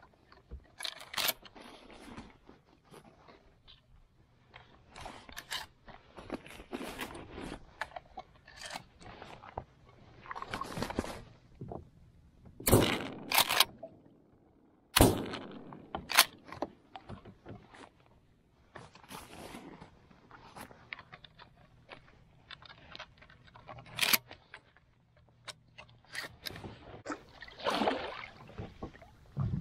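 Shotgun fired from a kayak, with sharp reports about halfway through; between shots come the clacks of the gun being handled and reloaded and the knocks and splashes of the paddle against the hull.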